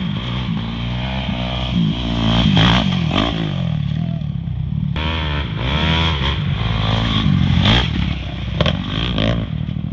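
Dirt bike engine revving hard and shifting, the pitch climbing and dropping several times as the rider accelerates.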